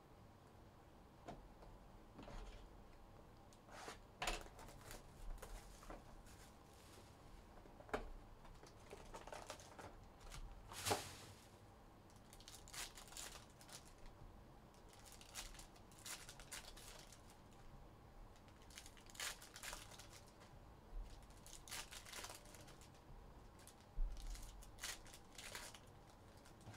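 Foil trading-card packs being torn open by hand, the wrappers crinkling in faint, irregular short bursts.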